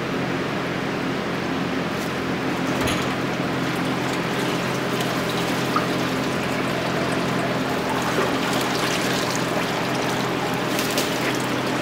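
Water sloshing and splashing in a hydrodip tank as an intake manifold is pushed down through the print film and worked under the surface, then lifted out with water pouring off it, over a steady background hum.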